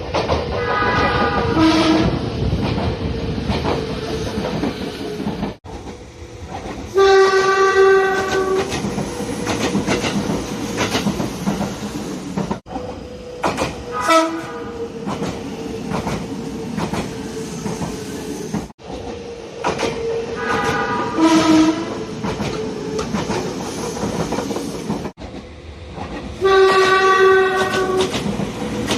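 Nagano Electric Railway express train horn sounding five times, once in each of five back-to-back clips cut abruptly together. Each horn is a short call of one or two pitched notes, the longest about two seconds. Underneath runs the noise of the train on the rails.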